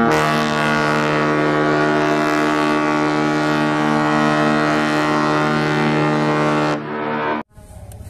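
A ship's horn sounding one long, steady blast on a low note with many overtones. It stops abruptly about seven seconds in.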